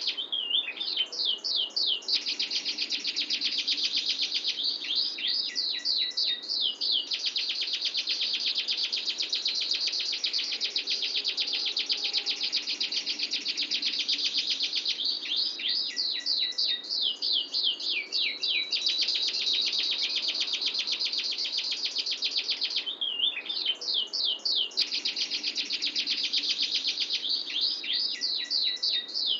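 A domestic canary singing long, rapid rolling trills. Every few seconds, about five times in all, the roll breaks into short runs of quick falling notes before it resumes.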